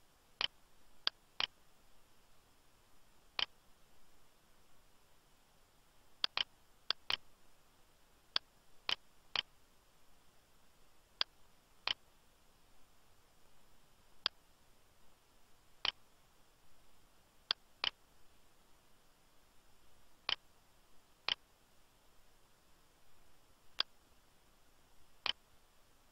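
Computer mouse buttons clicking, about twenty sharp single clicks and quick double-clicks at irregular intervals over a faint steady hiss.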